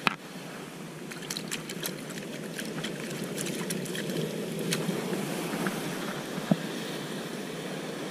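Surf washing against sea-cliff rocks, a steady rushing that grows slightly louder. Over it come scattered small clicks and taps, with a sharp click at the start and a single knock late on.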